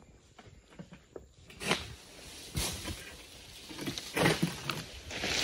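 Irregular rustling and scraping as a long-pole harvesting sickle works among oil palm fronds, a few louder scrapes coming after the first second or so.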